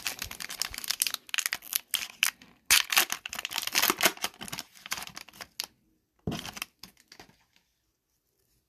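Foil wrapper of an Upper Deck hockey card pack crinkling and tearing as the pack is opened by hand: a dense run of crackles for about five and a half seconds, then one short burst again a little later.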